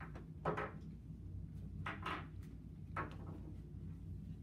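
Stage props being picked up and set down by hand: four short scuffs and bumps, spaced about a second apart, over a steady low room hum.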